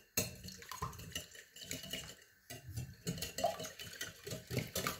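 Wire whisk beating two raw eggs in a glass bowl: a fast run of clicks and scrapes of the wires against the glass, with a short pause a little before the middle.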